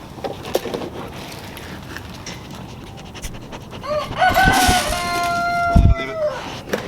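Rooster crowing once, a drawn-out cock-a-doodle-doo starting about four seconds in and dropping at its end, with a few knocks and a low thud around it.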